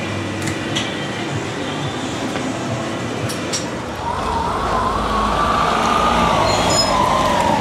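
Workshop background noise with a few light clicks. About four seconds in, louder low rumbling sets in, with a single wavering, siren-like tone that slowly rises and falls.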